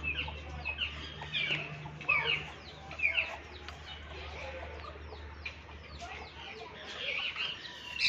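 Red junglefowl calling in their aviary: a busy run of short calls that fall in pitch, several a second, with a steady low hum underneath.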